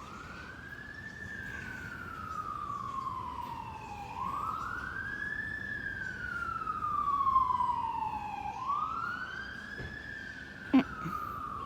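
Emergency vehicle siren sounding a slow wail: three cycles, each rising quickly and then falling slowly over about four seconds, growing louder toward the middle. A single short sharp knock comes near the end.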